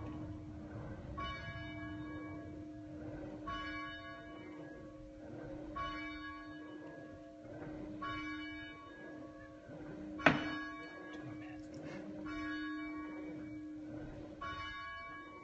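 A single church bell tolling steadily, one stroke about every two seconds, with its low hum carrying on between strokes. A sharp knock about ten seconds in is the loudest sound.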